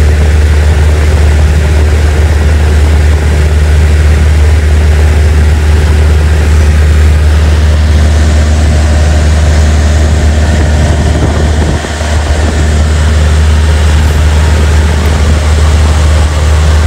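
Cessna 172's piston engine and propeller droning steadily in cruise flight, heard from inside the cockpit as a loud, even low hum, with a brief dip about twelve seconds in.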